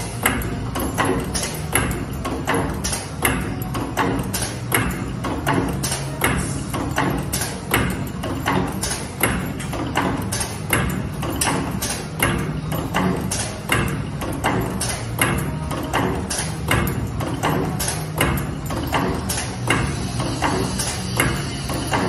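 All-servo-drive packing buckle forming machine running at speed, its forming slides knocking and clicking in a fast, regular clatter as they bend wire into buckles, over a steady low machine hum.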